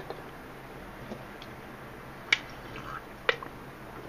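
Handling of a small handheld device, an iPod touch: two short sharp clicks about a second apart over faint steady room hiss.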